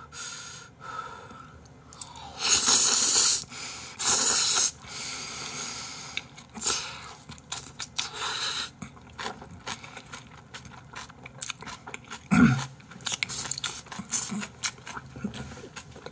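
A person eating Jjapaghetti noodles close to the microphone: two loud slurps about two and a half and four seconds in, then steady chewing with small wet mouth clicks.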